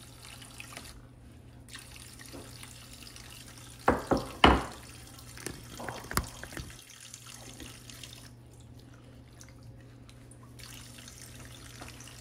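Kitchen tap running a thin stream into the sink. About four seconds in come a few sharp knocks as the glass dish is set down on the stone counter, then softer knocks over the next two seconds.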